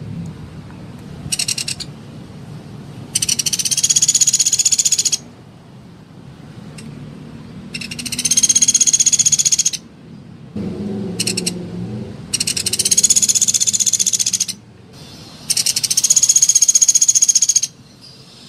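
Sunda pygmy woodpecker (pelatuk beras) calling in rapid, high-pitched rattling trills: four long trills of about two seconds each with short pauses between them, plus two brief bursts.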